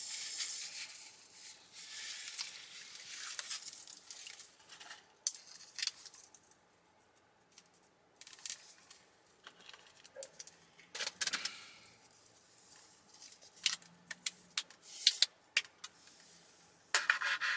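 Scattered clicks, taps and rustling from food packaging and containers being handled while eating, with a quiet stretch about six to eight seconds in and sharper clicks near the end.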